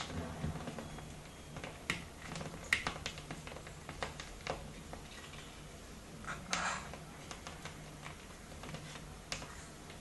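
Scattered clicks and taps, with a short scratchy scrape about six and a half seconds in: white cockatoos' claws and beaks on a window ledge and metal grille.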